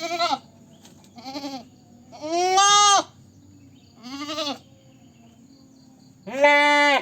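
Goat bleating: five separate calls, each under a second, with short pauses between them; the third and last are the longest and loudest.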